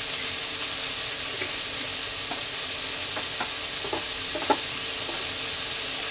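Tomato wedges and shallots frying in oil in a wok, a steady sizzle with a few faint pops and crackles in the middle.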